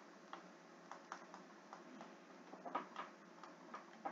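Faint, irregular taps and clicks of a stylus on a tablet screen during handwriting, a little stronger near the end.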